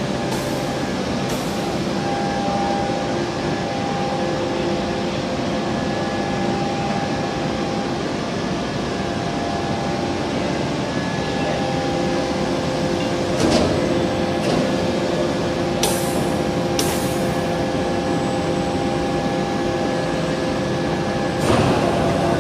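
Forging-line machinery running with a steady hum and several steady tones. A few sharp metal clanks come through, a cluster about two-thirds of the way in and a louder one near the end.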